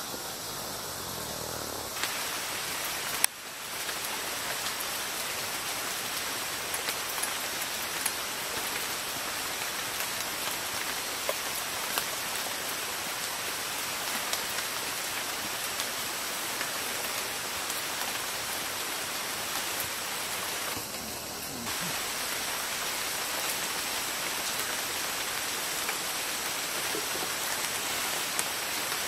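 Steady rain falling on the forest, an even hiss with scattered drops, broken once by a sharp click about three seconds in.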